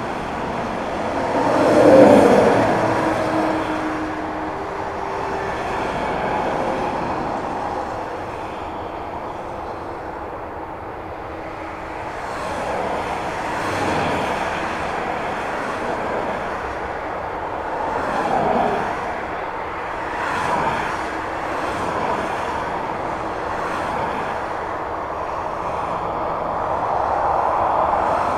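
Airbus A320 jet engines running as the airliner rolls along the runway: a steady, rushing roar that swells sharply about two seconds in, with smaller swells later.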